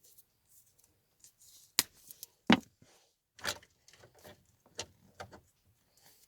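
Scattered clicks and knocks of small tools and parts being handled, with two sharper knocks about two seconds in.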